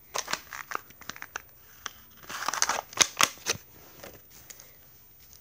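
Handling noise of a plastic fidget spinner being taken from its foam-lined case: scattered clicks, taps and crinkles, with the sharpest cluster of clicks about three seconds in.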